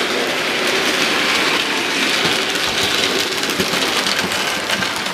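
Model goods train of wagons hauled by a Bachmann OO gauge Fowler 3F Jinty tank engine running past close by: a steady rushing rattle of small wheels on the track, with light clicks.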